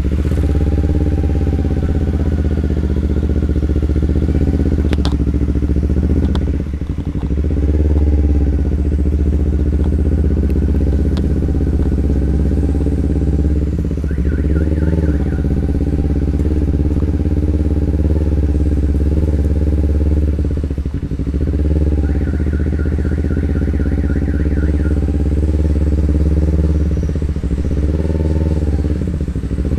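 Carburetted Kawasaki Ninja 250R's parallel-twin engine running loud through a noisy exhaust. The revs dip and rise again several times, about seven, eight, fourteen, twenty-one and twenty-seven seconds in.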